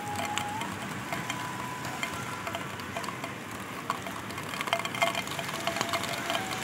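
Rain ambience on a wet rooftop: a steady hiss with scattered light ticks, and a faint sustained high tone that slides in pitch now and then.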